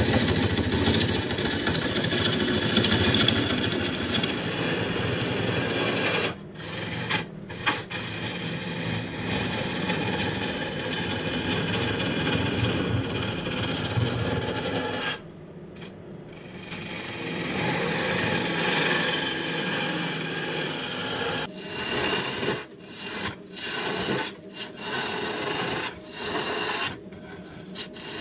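Turning tools cutting into a spinning wood blank on a lathe, making a steady rough scraping noise. It breaks off briefly now and then as the tool leaves the wood, with a longer gap about halfway through and more stop-and-start cuts near the end.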